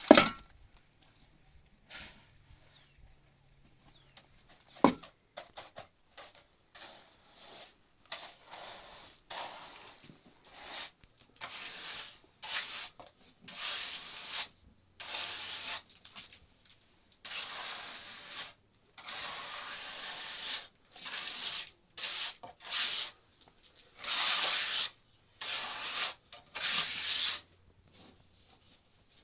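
Irregular rubbing strokes, one after another, each from about half a second to a second long. A sharp knock comes at the very start and another about five seconds in.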